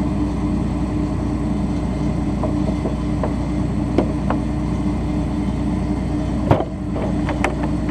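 An engine running steadily at idle, with a few light clicks and a sharper knock about six and a half seconds in.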